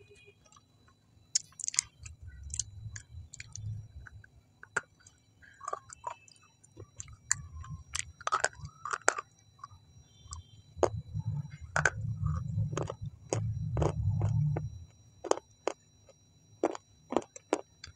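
Close-miked biting and crunchy chewing of a small white piece of food. Sharp cracks come every second or so, with a low muffled chewing rumble that is loudest a little past the middle.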